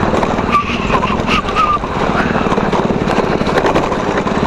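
Riding noise from a Tunwal Elektrika e-bike on a rough, potholed road: wind rushing over the microphone with a dense, rapid rattle from the bike's body parts as it jolts over the bumps.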